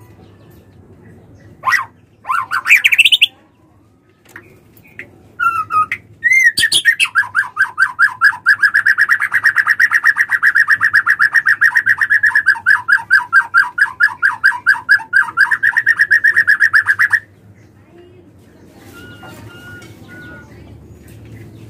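Female white-rumped shama calling: a few short calls, one rising, then a long rapid trill of repeated notes, about five a second, for about ten seconds that stops abruptly. This is the call used to rouse a male shama into singing.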